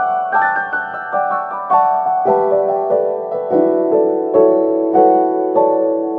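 Background piano music: a gentle melody of notes struck in quick succession, each ringing and fading, over a held low note.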